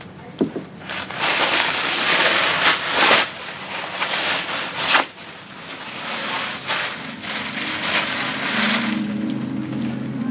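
Brown paper towels crumpled and rubbed between the hands: a dry rustling crackle in several long bouts. A low steady hum comes in over the last few seconds.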